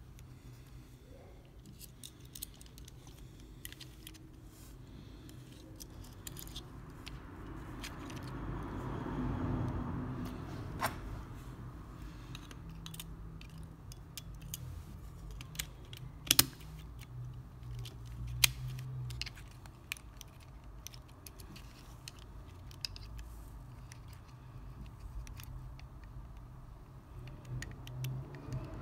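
Light plastic clicks and scraping as a PS4 DualShock 4 controller's circuit board is handled and pressed into its plastic shell, with a few sharper clicks about halfway through.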